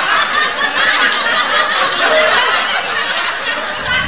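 A crowd of people laughing together, a dense, continuous laugh that cuts off abruptly near the end.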